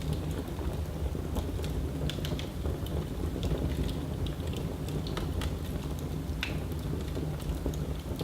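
Wood fire burning in a fireplace: a steady low rumble of the flames with irregular sharp crackles and pops.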